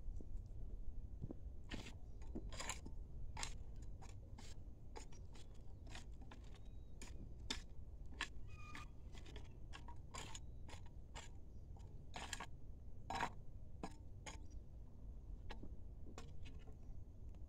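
A hoe blade scraping and chopping into dry, crumbly soil as a furrow is drawn in a garden bed: faint, irregular strokes, a couple of them louder a little past the middle.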